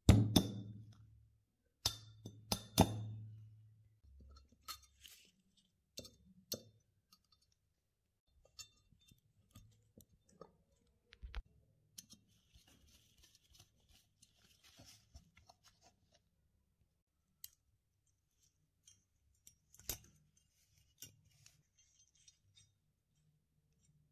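Steel parts of a pistol being worked with hand tools. There are a few loud metal knocks with a low ringing tail in the first three seconds, then scattered light metallic clicks and taps, a stretch of faint scraping, and one more sharp click near the end.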